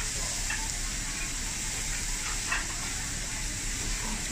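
Meat sizzling on a round tabletop Korean barbecue grill plate, a steady hiss.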